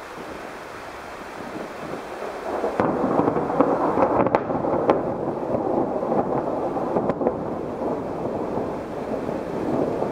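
Thunderstorm: a steady hiss that swells about three seconds in into a long, loud rumble of thunder, with a few sharp cracks in it.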